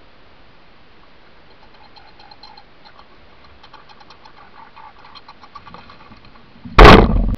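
Faint, irregular clicking and crackling while a red squirrel feeds at a pile of seed. Near the end, a sudden loud thump with a short rumble as a gray squirrel rushes in.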